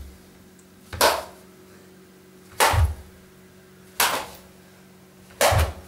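Open-hand strikes landing on a person's jacket and blocking arms: four sharp slaps about a second and a half apart.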